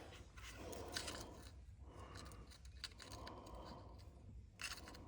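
Faint scraping and a few small clicks from a small pick tool worked under the white locking clip of the axle solenoid switch's electrical connector.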